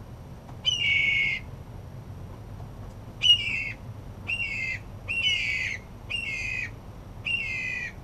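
Steller's jay giving six squawking calls: one longer call about a second in, then five shorter ones about a second apart, each dipping slightly in pitch.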